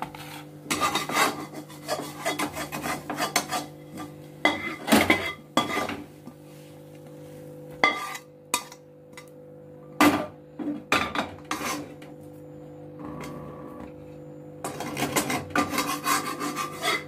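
Metal spatula scraping fried chana dal paste out of a kadhai onto a steel plate: repeated bursts of scraping with a few sharp knocks of metal on metal, over a steady low hum.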